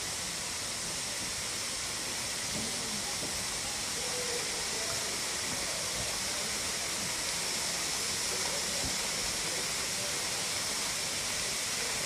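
Waterfall rushing in a steady, unbroken hiss of falling water, with faint distant voices under it.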